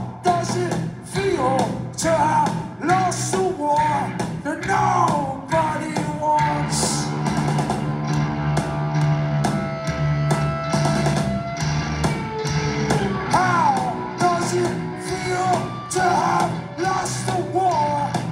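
Rock band playing live: electric guitars, bass guitar and drums with a sung lead vocal, the drum strikes keeping a steady beat.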